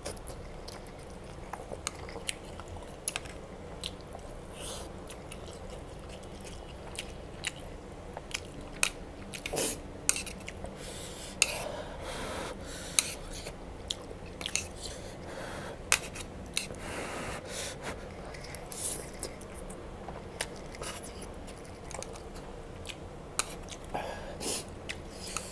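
Close mouth sounds of a person eating instant noodles: wet chewing and lip smacks with many short sharp clicks, and a few longer slurps of noodles.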